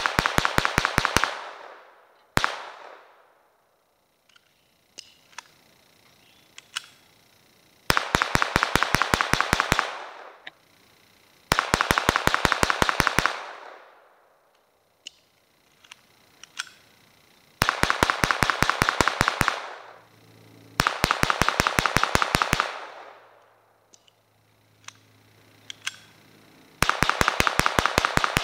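Colt Government 1911 .22LR semi-automatic pistol fired fast, in strings of about ten shots at roughly six a second. Pauses of a few seconds fall between strings, with a few single clicks in them.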